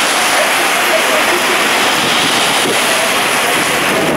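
Heavy downpour: a steady hiss of rain pelting the street and pavement, with a car's tyres swishing through the water on the wet road.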